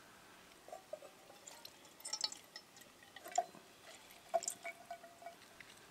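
Orange juice dripping from a hand-squeezed orange into a metal camp mug: faint, irregular drops, several of them with a short ringing plink.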